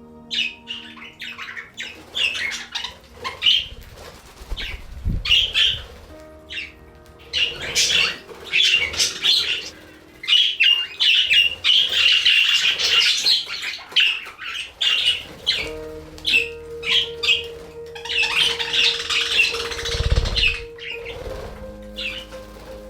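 A flock of budgerigars chattering, with many quick chirps and squawks, over background music with held notes. Two low bumps come about five and twenty seconds in.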